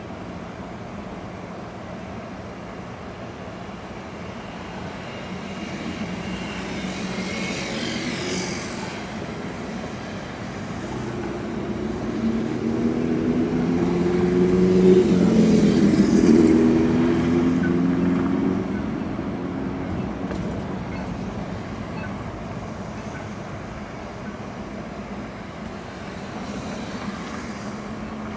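Road traffic at an intersection: engines idling, then a vehicle engine accelerating with rising pitch, loudest about halfway through. The tyre hiss of passing cars sweeps by now and then.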